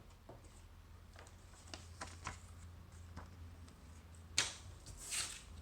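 Mechanical keyboard keys clicking and tapping one at a time at an uneven pace, with one louder click a little after four seconds and a short rustle near the end.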